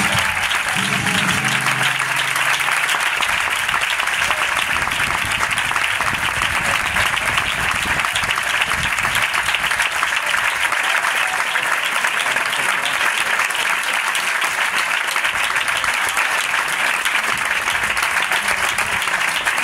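Concert audience applauding in a long, steady ovation, loud throughout, as the music's last notes die away in the first couple of seconds.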